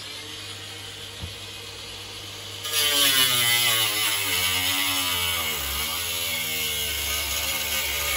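Angle grinder cutting through sheet metal. It runs lighter for the first couple of seconds, then bites in harder about three seconds in, with a loud hissing grind. Its motor whine sags and recovers under the load.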